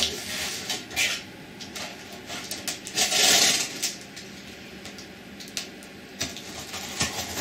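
Packing tape on a cardboard box being slit and torn open, with cardboard scraping and rustling and a few sharp clicks; the loudest is one rip of about half a second, about three seconds in.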